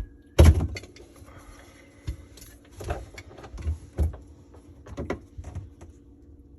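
Irregular knocks and clicks of a wrench and hands on a plastic P-trap slip nut as it is tightened, the loudest knock about half a second in.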